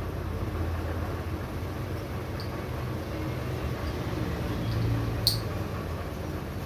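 Turbocharger parts being fitted by hand, the oil slinger going into the back plate: a few faint ticks and one sharp metallic click about five seconds in, over a steady low hum.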